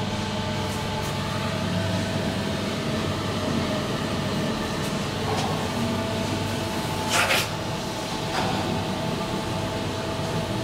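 SMW traction elevator car travelling in its shaft, heard from inside the car: a steady low hum with faint steady tones above it, and a brief hiss about seven seconds in.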